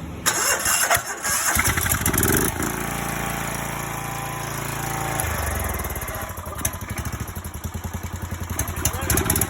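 Lawn mower engine cranked over with its key ignition, catching about a second and a half in, then running and settling into an even, pulsing idle.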